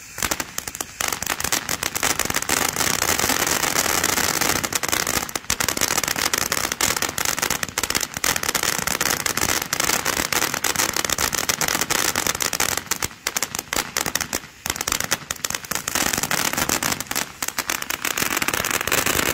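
Santan Fireworks Panther Attack 500-gram fountain spewing sparks and crackling stars: a dense, continuous crackling that briefly thins twice about two-thirds of the way through.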